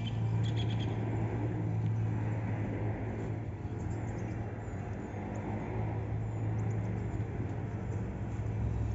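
A steady low hum and rumble, with birds chirping briefly in the first second and faint high ticks later.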